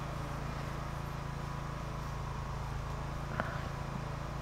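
Quiet outdoor ambience of a crowd keeping a minute of silence: a steady low hum under faint background noise, with one small click about three and a half seconds in.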